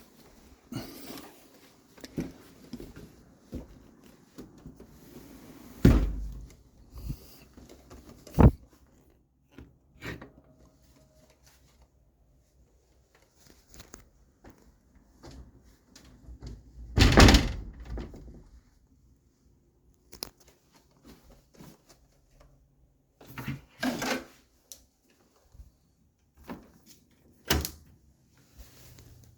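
Sliding windows being slid and pushed shut, a series of separate sharp knocks and thuds as the sashes hit their frames, the loudest a longer sliding rumble partway through.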